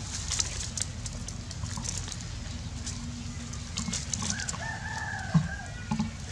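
A rooster crows once in the distance, a single drawn-out call of about a second and a half starting a little past the middle. Faint crackling clicks run throughout underneath.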